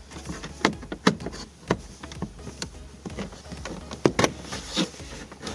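Plastic dash speaker grille of a 2012 Dodge Journey being pried up with a plastic panel removal tool: a string of irregular sharp clicks and snaps as the tool works against the grille and its clips, over a low steady hum.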